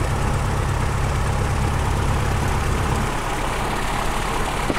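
Cessna 150's four-cylinder Continental O-200 engine idling, heard from inside the cabin as a steady low drone that eases off a little about three seconds in.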